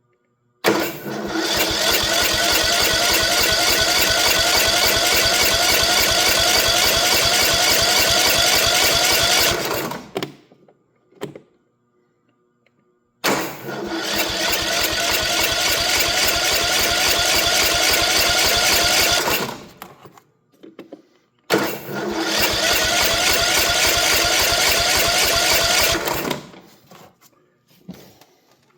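Electric starter cranking a Kohler 18 hp mower engine with the choke on, in three tries of about nine, six and five seconds, each ending abruptly as the key is let go. The engine turns over without catching, which the owner puts down to fuel not yet reaching the carburettor after the solenoid swap.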